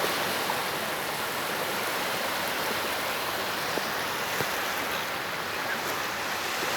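Sea waves washing onto a beach: a steady hiss of surf.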